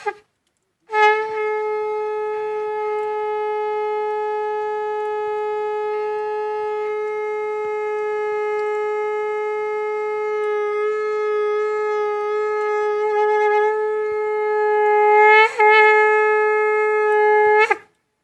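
Conch shell (shankh) blown: after a short toot, one long, steady held note that lasts some sixteen seconds. It breaks briefly near the end, then carries on and stops with a quick flick in pitch.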